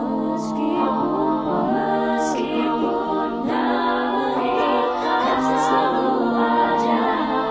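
A cappella cover song sung in layered, multi-tracked vocal harmonies: several voice parts sing chords together with no clear instruments.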